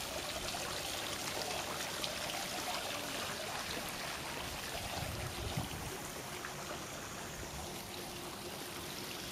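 Running water splashing and trickling steadily, as from a garden fountain or pool channel, with a brief low bump about five and a half seconds in.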